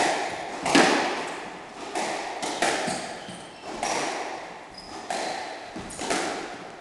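Squash rally: sharp cracks of the ball off rackets and the walls about once a second, each ringing out around the court. A few short high squeaks of shoes on the wooden floor between shots.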